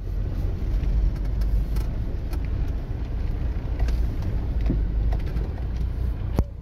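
Car driving slowly over a rough forest dirt track, heard from inside the cabin: a steady low engine-and-road rumble with scattered knocks and rattles, and one sharp click near the end.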